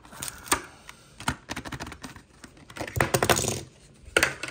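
Plastic blister pack of a Hot Wheels die-cast car being pried and torn off its cardboard backing card: a run of sharp clicks and crackles, with a longer crinkling stretch about three seconds in.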